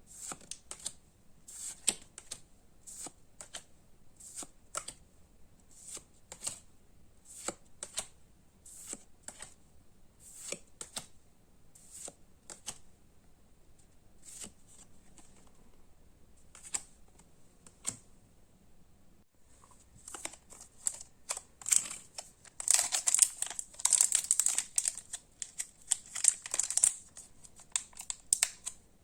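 Pokémon trading cards and booster packs handled by hand: crisp short rustles about once a second, then a dense burst of foil-wrapper crinkling and tearing in the last third.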